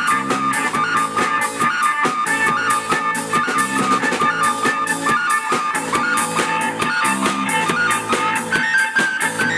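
Instrumental rock band playing: a synthesizer runs a fast repeating sequence of short notes over electric guitar and drums. Near the end a higher held note comes in.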